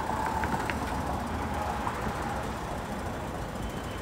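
City street traffic: a steady rumble of passing vehicles, with a few short ticks less than a second in.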